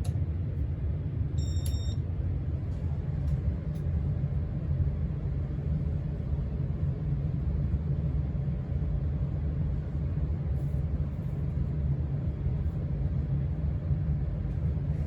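1987 Casablanca Spirit of Saturn ceiling fan running steadily at speed 6: an even low rumble from the motor and the moving air.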